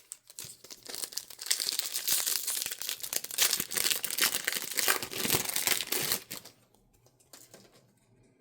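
A foil trading-card pack wrapper being torn open and crinkled, a dense crackling rustle for about six seconds that stops suddenly, followed by a few faint clicks.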